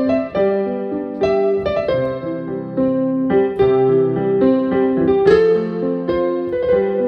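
Instrumental keyboard music: piano-like notes played over sustained chords in a slow, steady melody.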